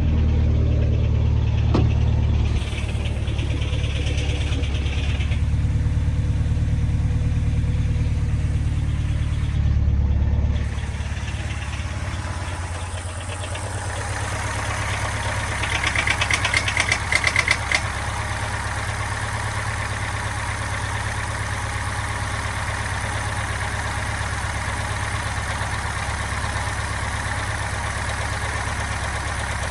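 Subaru Impreza STI's turbocharged flat-four engine idling, with a steady rhythmic knock that the owner wonders may be piston slap. The sound shifts and drops a little partway through, and there is a short louder rattle a little past halfway.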